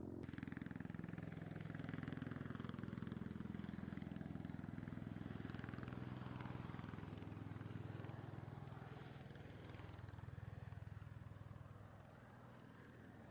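V-22 Osprey tiltrotor's rotors and turboshaft engines running with a pulsing hum, its pitch sliding slowly down as it passes, then fading near the end.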